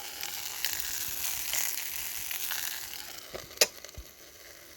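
Sausages sizzling and crackling as they fry in a Ridge Monkey pan, the sizzle thinning out over the last second or so, with one sharp click about three and a half seconds in.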